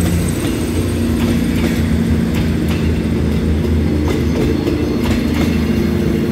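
Diesel railcar train rolling past at low speed: a steady engine drone under the clicking of wheels over rail joints.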